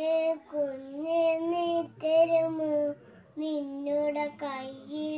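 A young girl singing a song solo, in several held, smoothly flowing phrases with short breaks for breath between them.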